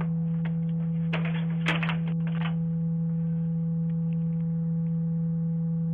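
A loud, steady low electronic hum, an unchanging pure tone with faint overtones. A cluster of clicks and crackles comes about one to two and a half seconds in, with a few faint ticks after.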